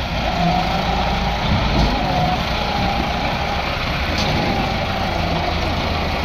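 Massey Ferguson 385 tractor's diesel engine running steadily, with a thin wavering whine over it.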